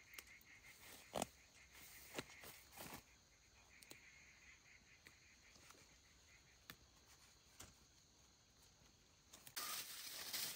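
Near silence with a few faint, scattered clicks and knocks, then a louder rustling noise starting near the end.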